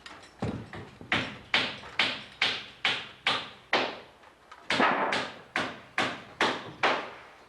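Hammer blows, about two a second, each with a short ringing decay, in two steady runs with a brief pause near the middle.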